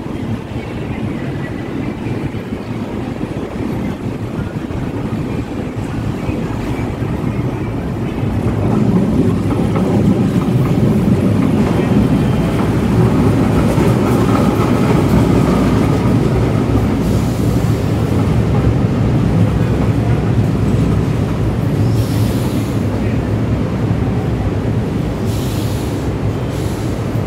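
LRT Line 1 light rail train coming into the station: a rumble of wheels on rail that grows louder about eight seconds in and stays strong, easing slightly near the end, with a couple of short hisses late on.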